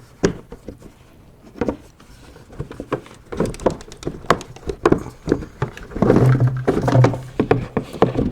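Irregular clunks, knocks and rattles of plastic engine-bay parts being handled as the truck's air intake box is taken off. A low steady hum joins in for a couple of seconds near the end.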